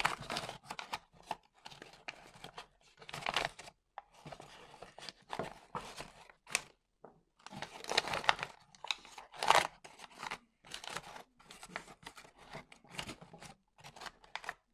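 Kraft wrapping paper crinkling and rustling in irregular bursts as it is pressed and tucked around a rolled leather belt inside a wooden box.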